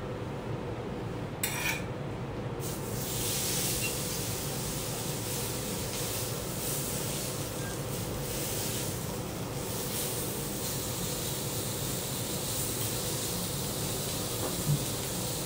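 Beef steak sizzling on a hot teppanyaki steel griddle: a steady hiss that starts about three seconds in. A knife or fork clicks on the steel plate near the start, and there is a sharp clink near the end.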